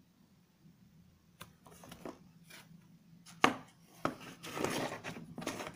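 A hard plastic tool case being handled on a tabletop. There are a few light clicks and knocks, one sharper click about three and a half seconds in, and then scraping and rubbing as the case is worked open.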